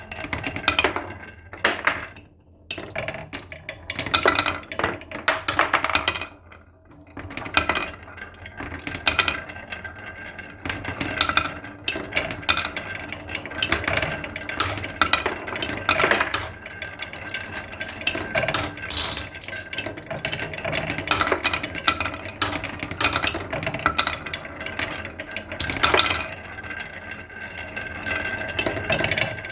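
Marbles rolling and clattering down a wooden marble-run track and through a plastic pipe: a steady rolling rattle full of sharp clicks and clinks as the marbles knock against the track and each other. The run starts suddenly and keeps going throughout.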